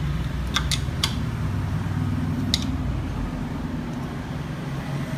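A few sharp clicks of a small hand tool tightening the valve-cover bolts on a Daewoo Lanos engine, over a steady low hum.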